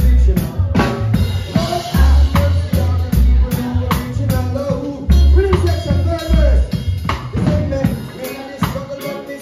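A live band playing: a drum kit keeping a steady beat on kick and snare under electric bass, electric guitar and a sung vocal line. The deep bass notes drop out near the end.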